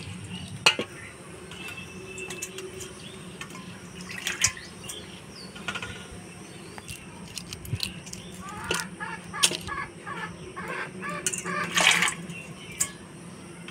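Hard-boiled eggs being shelled by hand and set down on a wet stainless-steel plate: scattered clicks and taps of shell and egg on metal, with a little water.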